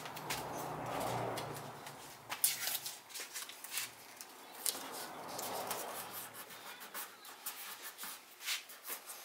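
Handling noise: scattered light clicks and rubbing as parts are worked by hand, with two longer soft rubs about a second in and around the middle.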